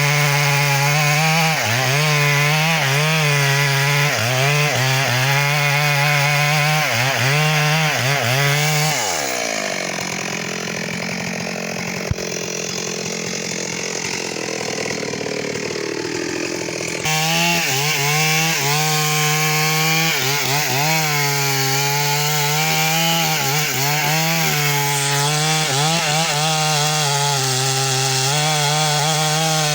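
Stihl MS 382 two-stroke chainsaw running at high revs while cutting wood, its pitch dipping and recovering about once a second as the chain bites under load. About nine seconds in the engine note drops away and the sound goes quieter for several seconds. Full-throttle cutting then starts again abruptly.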